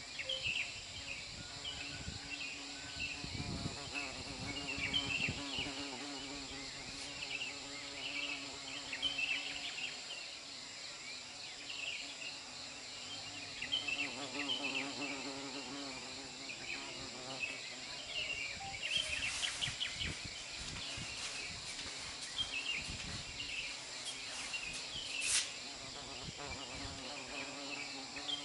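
Outdoor ambience of insects: a steady high-pitched insect drone with short chirps repeating throughout and a low steady hum underneath. There is one sharp click near the end.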